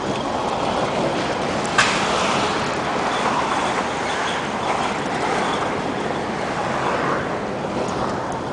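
Steady road and traffic noise heard from inside a moving car: tyres and engine running over the street. A single sharp knock about two seconds in is the loudest sound.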